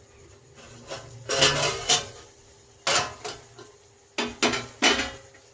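A metal pan lid is lifted and a spatula clanks and scrapes against the cooking pan as the softened tomatoes are uncovered and stirred, in a few separate clatters.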